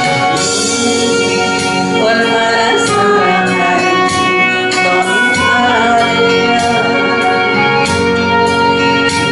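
A woman singing a Korean gospel praise song through a handheld microphone, over steady instrumental accompaniment.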